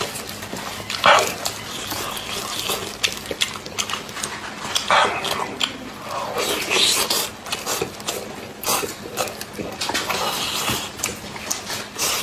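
Close-miked eating sounds: wet chewing, lip-smacking and sucking on sticky glazed meat, with many small clicks from the mouth.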